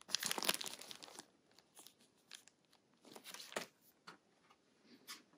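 Clear plastic packaging crinkling as it is handled, in a burst of about a second, then another shorter one a little past halfway, with a few small clicks between.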